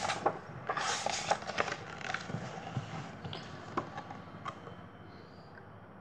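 A page of a picture book being turned and the book handled: paper rustling with a few light ticks and taps, dying away to near quiet toward the end.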